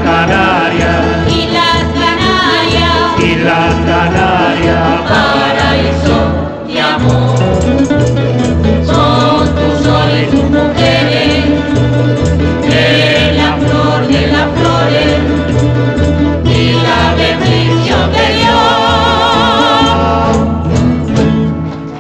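Canarian folk group singing in chorus over instrumental accompaniment with a steady, repeating bass line, performed live; the song ends shortly before the end.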